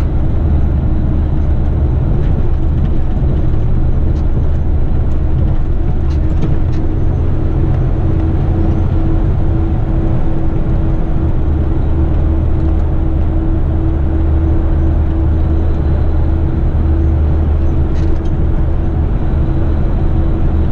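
Heavy rigid truck heard from inside the cab while driving at highway speed: a steady engine drone under road and tyre noise, with a steady hum joining about six seconds in.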